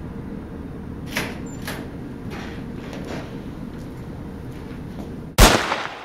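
A door latch clicks twice and the door opens, followed by soft footsteps of someone walking in. Near the end a single loud bang dies away over about a second.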